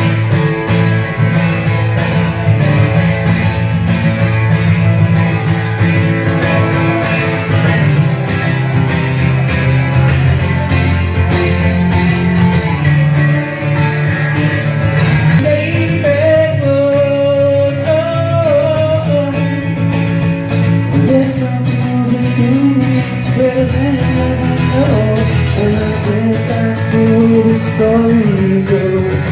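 Acoustic guitar strummed in a steady rhythm, with a man's singing voice coming in about halfway through: a solo live performance of a song.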